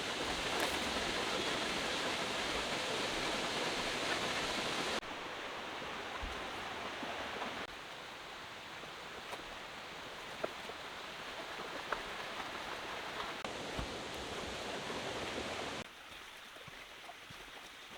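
Steady rush of waterfall water, an even noise with no tones. It drops abruptly in level about five seconds in, again a little later, and once more near the end.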